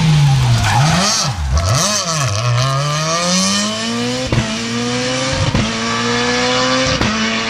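Peugeot 207 S2000 rally car braking hard into a tight bend, engine revs falling through quick downshifts with two short dips. It then accelerates away with the revs climbing steadily, cut by three sharp gear-change cracks as it shifts up.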